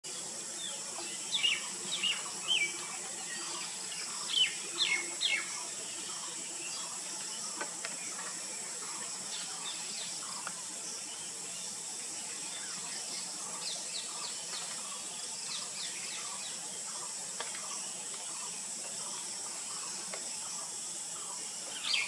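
Rose-ringed parakeet giving short, sharp calls that slide down in pitch: three in the first three seconds, three more around four to five seconds in, and another at the very end. Fainter chirps run throughout over a steady high hiss.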